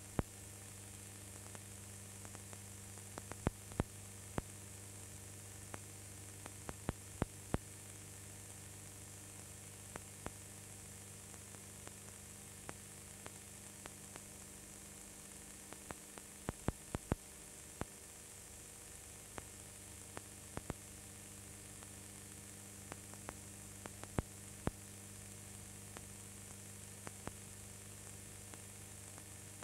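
Steady low mains hum and hiss with scattered sharp clicks at irregular intervals, the noise of a blank soundtrack rather than any sound of the race.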